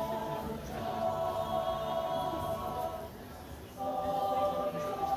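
Mixed high school choir singing long held chords in several parts, dropping briefly about three seconds in before the next phrase comes in.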